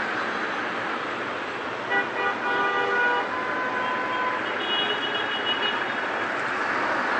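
Road traffic noise at a busy intersection, with several vehicle horns sounding between about two and six seconds in.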